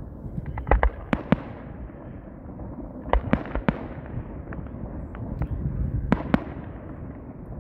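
Fireworks display: aerial shells bursting with sharp bangs. The bangs come in small clusters about a second in, around three seconds in and around six seconds in, over a continuous low rumble.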